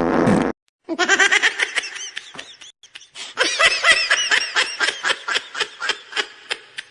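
Laughter, a quick run of ha-ha pulses in two stretches with a short break about three seconds in, after a brief buzzing noise at the very start.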